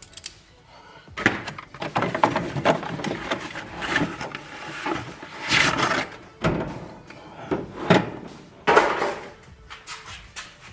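A hard plastic socket-set case and its cardboard packaging being handled, unpacked and opened, with repeated scraping, rubbing and clattering and a few knocks.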